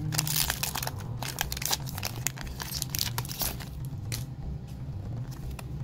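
Foil Pokémon booster pack wrapper crinkling and tearing in the hands as the pack is opened: a dense crackle that thins to a few crinkles after about four seconds.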